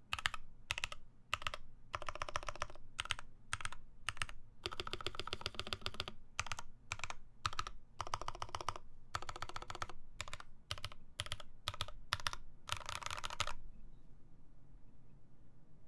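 Typing on a J-01 mechanical keyboard with lubed Prevail Epsilon switches, an FR4 plate and GMK keycaps: keystrokes in quick runs broken by short pauses. The typing stops near the end.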